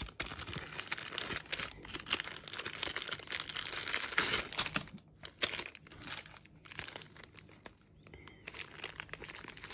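Small plastic zip-lock bags and packing wrap crinkling as they are handled, busy and dense for the first half, then sparser crackles.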